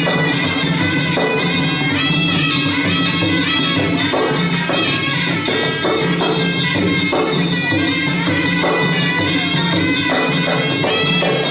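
Traditional Kun Khmer fight music: a reed-pipe melody played over steady drums and small hand cymbals, continuous and loud.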